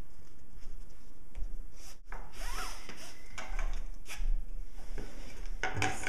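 Webbing being threaded by hand through a side-release buckle: the strap slides and rubs through the buckle's slots, with scattered short clicks and rustles of handling.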